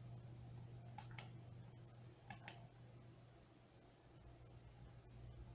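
Near-silent room with a low steady hum and two quick pairs of faint computer mouse clicks, about a second in and again just over a second later.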